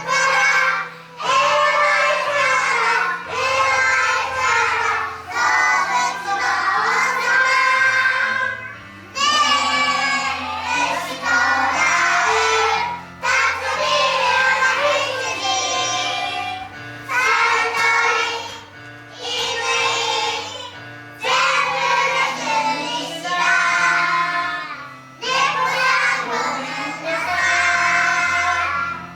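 A group of young children singing a song together, in phrases a few seconds long with short breaks between them, over an instrumental accompaniment with sustained low notes.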